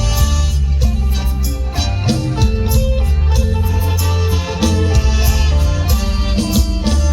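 Isan mor lam band music played loud, with heavy bass, held melodic notes and a steady drum beat.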